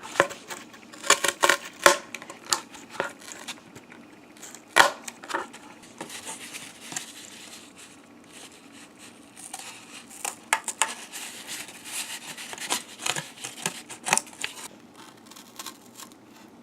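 Scissors cutting through cardboard: an irregular run of sharp snips with rustling of the cardboard between them.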